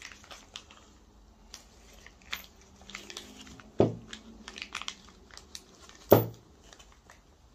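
Gloved hands handling small RC truck differential parts and screws: light clicks and crinkly rustling of nitrile gloves, with two dull knocks about four and six seconds in.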